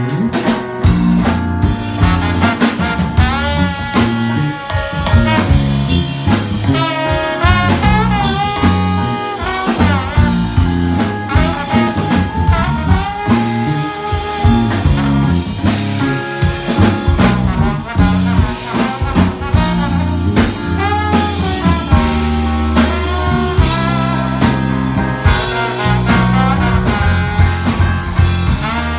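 Live jazz band playing: a trombone carries the melody, its pitch sliding between notes, over electric bass, drum kit and keyboard.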